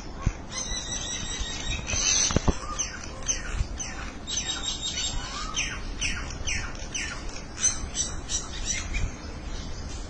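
Common mynas calling: a rapid string of harsh squawks and chatter, many notes sliding quickly down in pitch.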